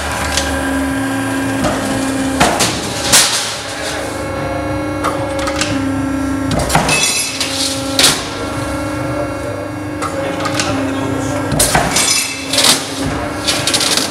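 Sharp metallic clanks and knocks of a steel sheet being handled and cut on a hydraulic guillotine shear, loud single strikes a few seconds apart with a quick cluster near the end, over a steady drone.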